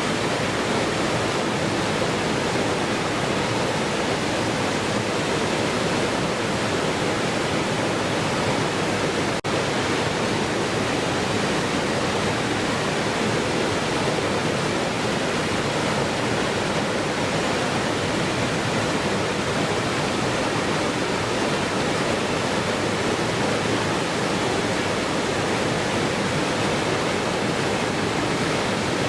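Waterfall: water pouring in a steady, unbroken rush, with a momentary dip in level about nine seconds in.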